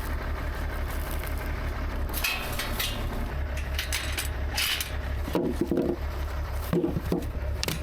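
Tractor diesel engine running steadily, with irregular wooden knocks and clatters from about two seconds in as wood and pallets are handled and dropped into the loader bucket, and a few short squeaks near the end.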